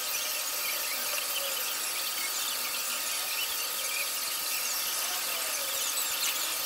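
Foam brush rubbing and squeaking over the face of a carved wooden trivet as finish is brushed on, with many small high squeaks over a steady hiss.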